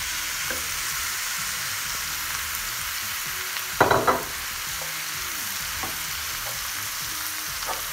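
Thin slices of frozen beef sizzling steadily in hot butter in a pot as they are stirred with a wooden spoon. There is a brief, loud clatter about four seconds in.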